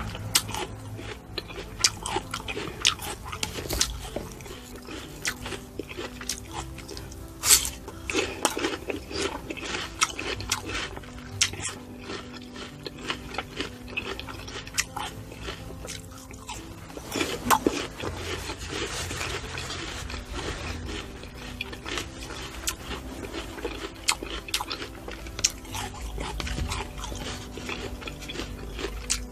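Close-miked eating sounds: fruit being bitten and chewed, with many short crisp crunches and wet mouth clicks, plus soft background music.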